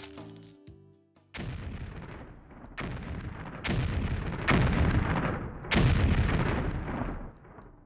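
A string of heavy booms, about five in a row at uneven spacing, each with a rumbling tail, building louder through the middle and dying away near the end.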